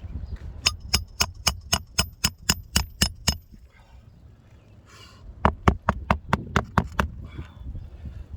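Hammer driving roofing nails into an asphalt shingle. A quick run of about a dozen strikes, roughly four a second, with a metallic ring, is followed by a pause and a second run of about seven strikes.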